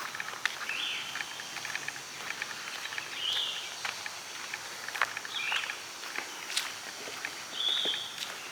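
Birds chirping outdoors, a short call repeated every second or two, over footsteps with scattered sharp clicks.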